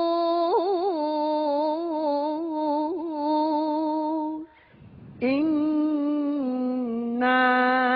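Solo voice reciting the Quran in melodic tajwid chant: a long, ornamented held note on "yawm", a short break about four and a half seconds in, then "al-khurūj" chanted on another long, sustained line.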